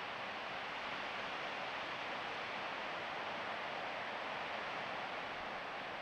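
Steady rush of a flowing canyon creek, an even hiss with no rise or fall.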